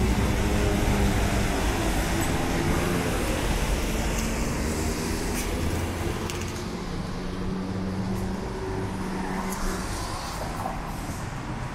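City road traffic: cars and heavier engines running past on a busy street, a steady low rumble that eases a little in the second half.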